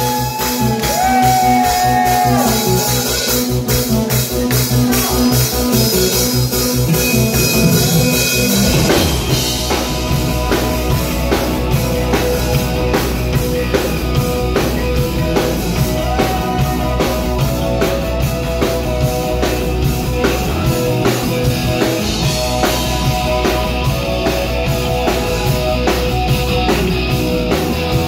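Live rock band playing, loud: an intro built on a fast repeated figure, then about nine seconds in the drums and bass come in with a full band groove of electric guitar, bass, keyboard and drum kit.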